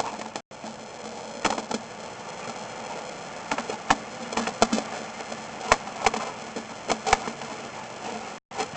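Sewer inspection camera rig running: a steady hiss with a faint electrical hum and whine, broken by irregular clicks and knocks. The sound cuts out completely for a moment about half a second in and again near the end.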